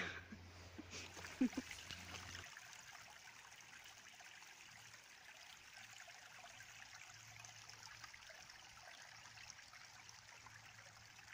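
A small woodland brook trickling over stones, a faint, steady rush of running water. There is one short, louder sound about a second and a half in.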